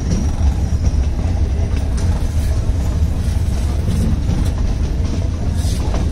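Metre-gauge passenger train running out of a station, heard from an open coach doorway: a steady low rumble of the coach and wheels on the track, with a few faint clicks.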